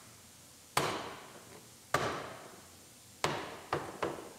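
Hand knocking a plastic liftgate trim panel to seat its push-in clips: three sharp knocks about a second apart, then two lighter ones near the end.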